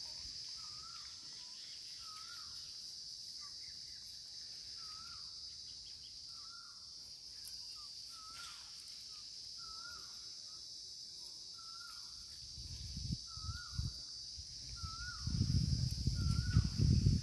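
Outdoor insects keep up a steady high drone, while a short rising-and-falling call repeats about once a second. In the last few seconds, low bumps and rumbles come in and become the loudest sound.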